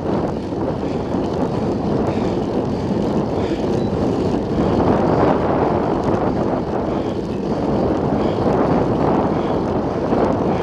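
Wind rushing over an action camera's microphone as it travels along a road: a steady, loud rush with no engine tone.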